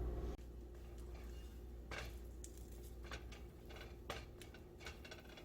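Background music cuts off just after the start. Then come quiet kitchen handling sounds: a string of small, scattered clicks and taps of dishes and utensils.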